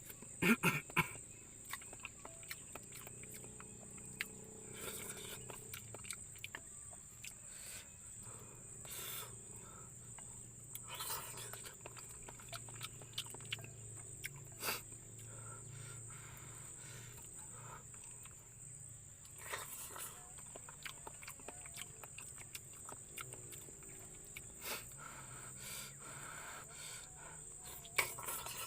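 Crickets or other night insects with a steady high-pitched chirring, over scattered clicks and knocks of close handling noise.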